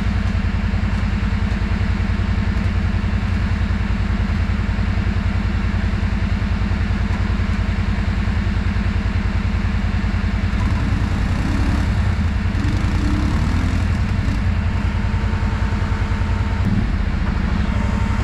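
ATV engine running at a steady, even speed with no revving.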